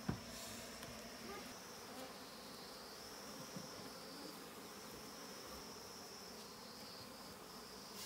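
Honey bees buzzing steadily around an opened wooden box hive that is being smoked, with a steady high-pitched hum over the buzz. A single knock right at the start.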